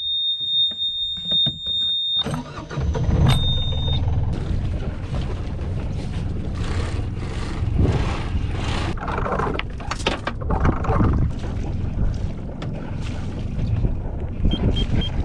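A steady high-pitched beep, then about two seconds in a sailboat's inboard engine starts and keeps running with a low rumble; the beep sounds once more briefly and stops.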